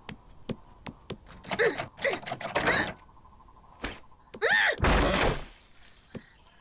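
Cartoon footsteps tapping on a wooden floor, a few wordless voice sounds, then one heavy thunk with a crash about five seconds in.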